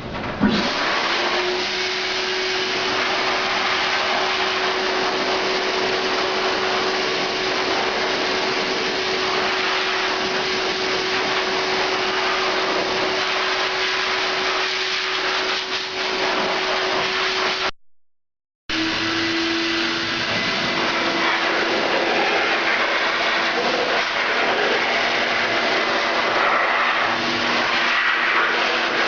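Ring-blower-driven Wind-Gun air blower running, a loud steady rush of air with a steady whine. It comes on sharply at the start, drops out for under a second a little past the middle, then resumes with a slightly lower whine.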